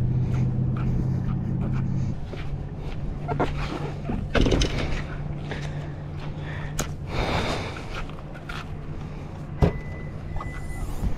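An engine running steadily, louder for the first couple of seconds and then lower, with scattered knocks and bumps over it.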